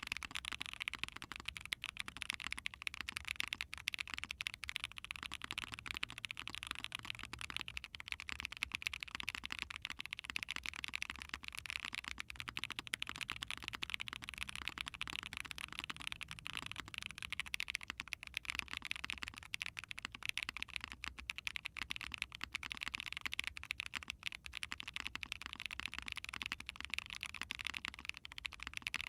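Continuous fast typing on a mechanical keyboard with KNC Keys Green Jacket tactile switches, a POM plate and GMK keycaps: a dense run of sharp, bright key clicks. The switches carry a slight leaf ping that the reviewer says lubing would remove.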